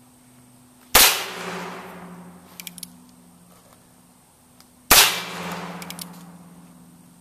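Two revolver shots about four seconds apart, each a sharp crack followed by an echoing tail that dies away over a couple of seconds. A few light clicks come between them as the single-action revolver's hammer is cocked for the next shot.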